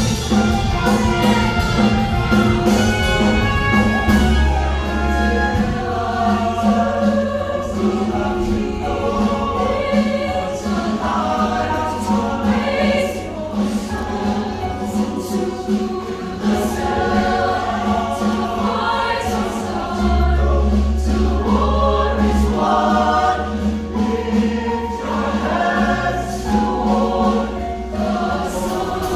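Show choir singing in full harmony over instrumental accompaniment, with deep bass notes swelling twice.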